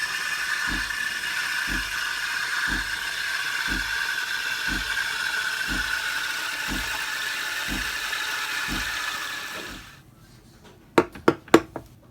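De'Longhi Dedica EC680 espresso machine running with a steady hiss and a low pump thump about once a second. It shuts off about ten seconds in, followed by three sharp clicks.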